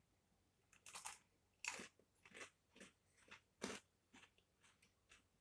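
Faint crunching of a thick cream-filled Oreo sandwich cookie being bitten and chewed: a string of short, dry crunches, roughly two a second, the loudest a little past halfway.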